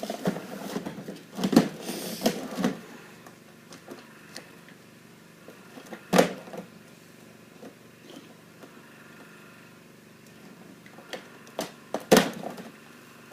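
Plastic printer parts being handled and pulled at: scattered knocks and clatter, loudest a few times in the first seconds, once about six seconds in and again near the end, with quieter stretches between.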